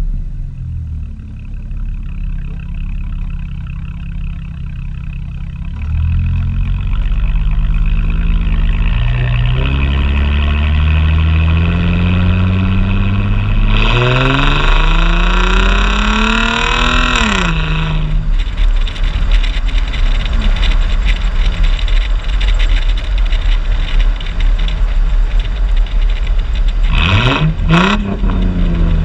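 2004 Ford Mustang 3.9-litre V6 with a muffler delete (catalytic converters still in, single outlet), idling, then revved slowly up to a high rev over about ten seconds before dropping back to idle. A short, quick rev blip near the end.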